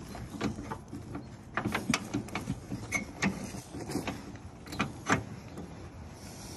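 Steel J-pin being worked back and forth in the front floating-mount bracket of a John Deere 400 mower deck: irregular sharp metallic clicks and scrapes as the stubborn pin sticks in its bracket.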